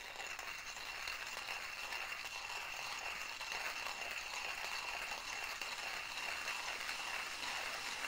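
Porlex Mini hand coffee grinder being cranked steadily, its ceramic burrs grinding whole coffee beans in a continuous, even crunching noise.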